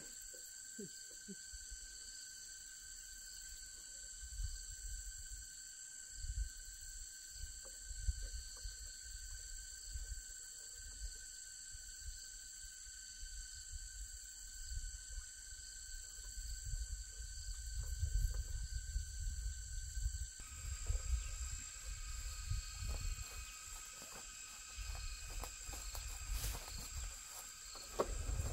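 Insect chorus chirring in several steady high tones, with low irregular rumbling underneath; the background shifts abruptly about two-thirds of the way through.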